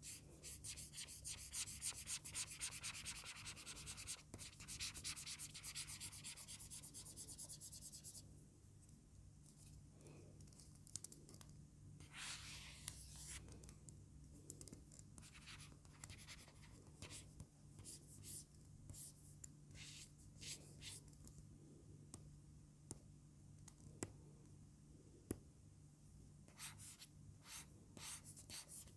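Faint scratching of a stylus nib on an ONYX BOOX Note 3 e-ink screen, the ONYX nib giving a paper-like friction: rapid back-and-forth scribbling for about the first eight seconds, then slower, separate short strokes.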